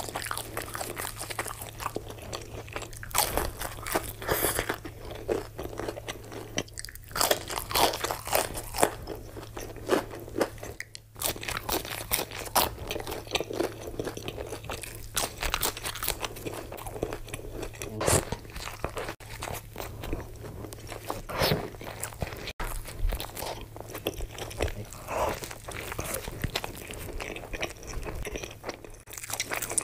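Close-miked eating of fried fast food: repeated crunchy bites and chewing of crisp fried chicken and fries, with a low steady hum underneath.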